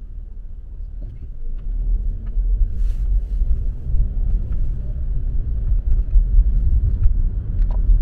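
Low engine and road rumble heard inside a car as it pulls away from a stop and picks up speed, growing louder about two seconds in.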